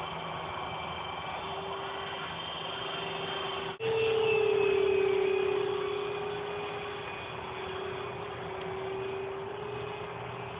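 Twin Hobbyking 70 mm electric ducted fans on a radio-controlled Su-37 jet, whining steadily in flight. Just under four seconds in, the sound cuts out for an instant. The whine then comes back louder and a little higher, easing down in pitch and level over the next few seconds.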